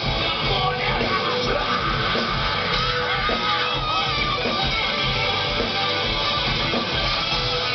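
Rock band playing live, with electric guitar to the fore over a steady full-band sound.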